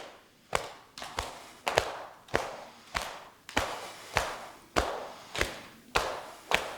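Hands tapping the body in a self-massage tapping exercise: steady, even strikes a little under two a second, each sharp with a short hiss-like tail.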